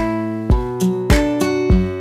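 Instrumental background music with a steady beat, a little under two beats a second.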